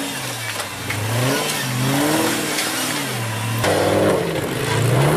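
Engine of an off-road rock-crawler buggy revving up and down over and over under load as it climbs a rocky slope.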